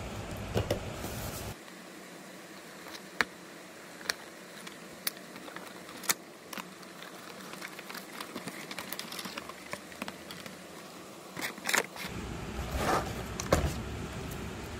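Hands handling unboxing packaging: scattered sharp clicks of plastic and cardboard about once a second, then crinkling and rustling of a clear plastic tray and bag from about eleven seconds in.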